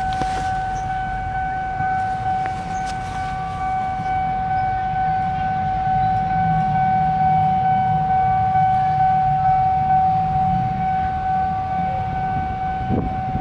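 Diesel locomotive running slowly close by: a steady low engine rumble under a constant high whine that holds one pitch throughout.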